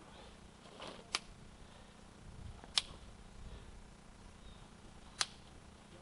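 Three short, sharp clicks or snaps at uneven intervals, over a faint low rumble.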